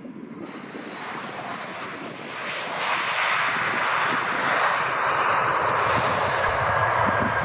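Jet engines of an easyJet Airbus A319 rolling out along the runway just after touchdown: a steady rushing roar that grows louder about two seconds in and stays loud as the airliner passes and moves away.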